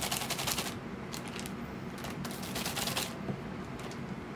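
Plastic zip-top bag crinkling in a few short spells of crackly rustling as it is pressed by hand onto a wet painted canvas and lifted off.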